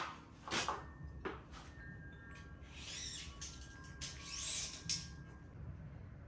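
A few light knocks and metallic clinks, then two brief scraping rustles, with faint ringing tones in between: metal parts being handled.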